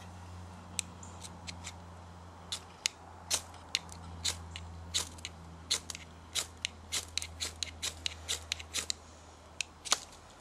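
Short, sharp scraping strokes of a knife or fire-steel striker in fire lighting, repeated irregularly at about two or three a second over a steady low hum.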